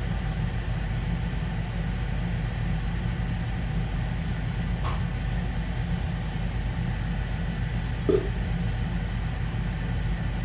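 Steady low mechanical hum, with a faint knock about five seconds in and a brief short sound about eight seconds in.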